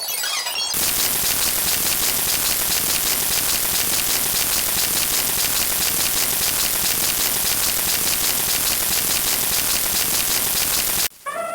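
A steady hissing noise with a fine, rapid crackle, like rain or radio static, that cuts off suddenly near the end. Brief chirpy tones come just before it starts.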